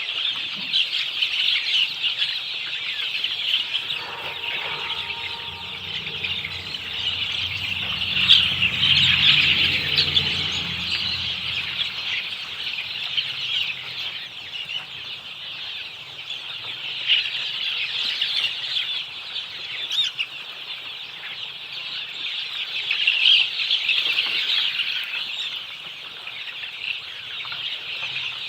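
A flock of desi chickens clucking and cheeping, a continuous chatter of many short high calls, louder for a few seconds about a third of the way in.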